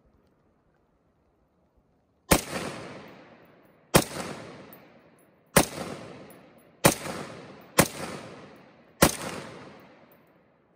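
Six gunshots fired singly at uneven spacing, roughly one every second or so, each followed by an echo that dies away over about a second.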